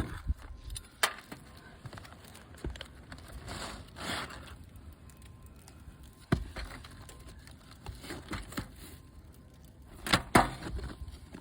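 Irregular scraping, crackling and clicking of asphalt shingles being lifted and handled on a roof, with a rustling swish about four seconds in and a couple of sharp knocks about ten seconds in.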